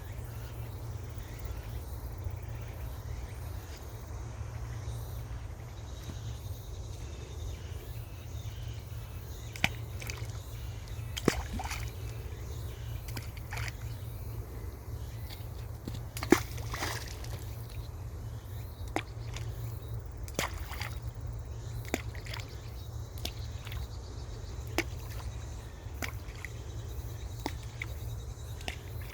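Small stones dropping one at a time into still pond water: about a dozen separate plops a second or two apart, the loudest about halfway through, over a steady low rumble.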